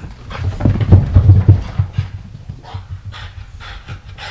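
French bulldog panting close by, loudest over the first couple of seconds.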